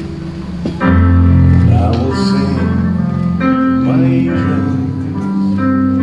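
Music: a slow song with sustained chords, stepping up in loudness about a second in.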